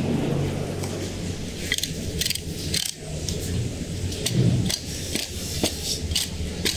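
Knife blade scraping and clicking along the rib bones of a bluefin tuna as the loin is cut free, in a series of short strokes from about two seconds in, over a low steady background rumble.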